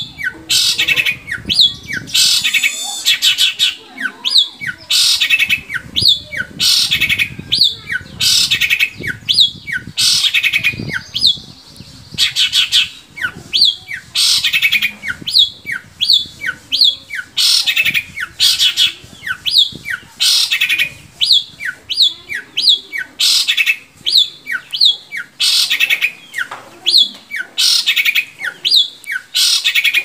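Long-tailed shrike (cendet) in full song: loud, harsh scratchy chatter in bursts about once a second, mixed with short notes that slide downward, keeping on without a break.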